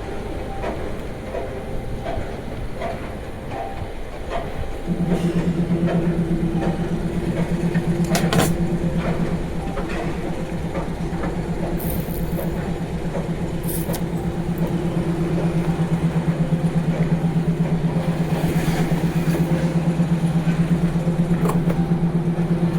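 A washing machine's motor starts about five seconds in and runs with a steady, fast-fluttering hum. A few sharp clicks and knocks sound over it.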